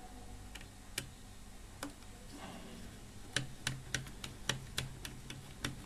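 Sharp little clicks and ticks of a small screwdriver working at the tiny non-iron screws that hold a DVD player's spindle motor in its plastic mechanism: a few scattered ones at first, then a quicker run of about three a second from about halfway through.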